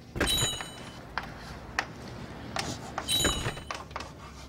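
Chalk writing on a blackboard: short tapping and scraping strokes, with two brief high-pitched squeaks of the chalk about three seconds apart.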